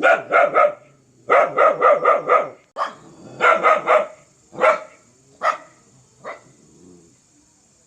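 A dog barking fiercely in rapid volleys of three to five barks. Toward the end the barks come singly, spaced out and fainter.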